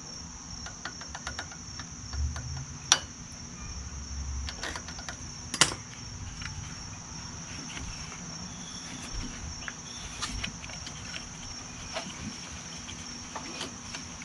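A steady high insect drone, like crickets, with a few sharp metal clicks and soft knocks from hand work on a lawn tractor engine's rocker arm and flywheel; the two loudest clicks come about three and five and a half seconds in.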